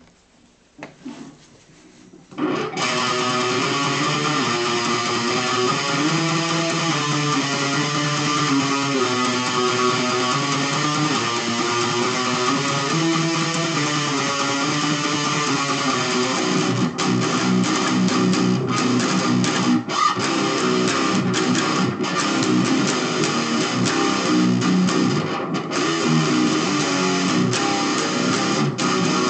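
Electric guitar playing a riff, the intro to a song, starting about two and a half seconds in; from about seventeen seconds the playing turns choppier, with short breaks between phrases.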